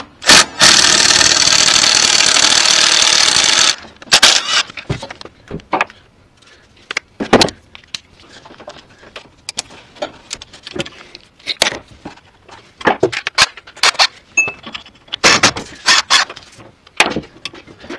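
Cordless Milwaukee M18 impact wrench hammering a pump mounting bolt loose for about three seconds, stopping abruptly. After that come scattered metallic clinks and rattles of the socket, extension and bolt being handled.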